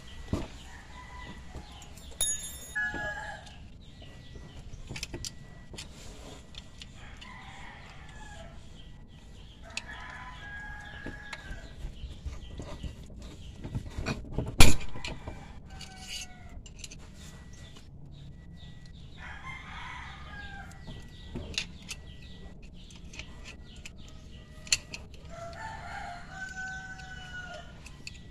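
A rooster crowing repeatedly, about six calls spread through the stretch, each ending in a falling tone. Scattered sharp clicks and one loud knock about halfway through come from hand work on the car.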